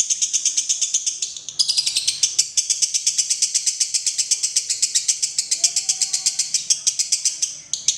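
Lovebird singing its rapid ngekek chatter: a fast, steady string of shrill notes, about eight a second, with a short break about a second and a half in, then running on until it stops just before the end. The long unbroken run is the 'konslet' style of lovebird song.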